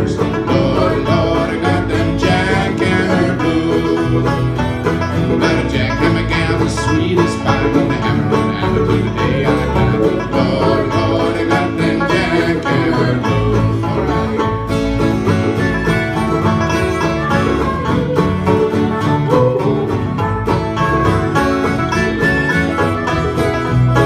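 Live folk-country band playing an instrumental break: a five-string banjo picking over strummed acoustic guitars, in a steady up-tempo rhythm.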